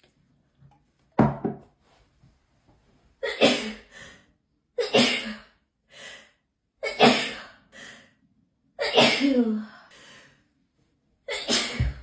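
A person sneezing over and over in a hay fever sneezing fit: about six loud sneezes, one every couple of seconds.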